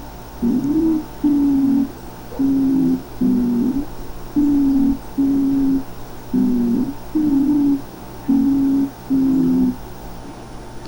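Stridor in a child's breathing: a harsh, musical, high-pitched noise on both breathing in and breathing out, in five breaths of paired tones about two seconds apart that stop near the end. It is the sign of turbulent airflow through a narrowed larynx and trachea, as in tracheitis or laryngotracheitis.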